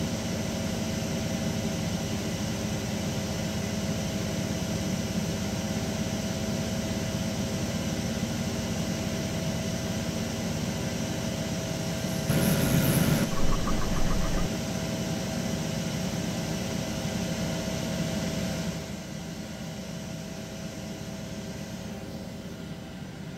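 CNC lathe running with its spindle turning and no cutting yet, giving a steady machine hum with a few fixed tones. About halfway through there is a brief louder, hissier burst, and the hum drops in level a few seconds before the end.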